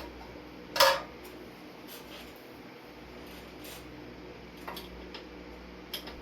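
Metal hardware clinking while a ceiling fan is taken down: one sharp clink about a second in, then a few light clicks, over a steady low hum.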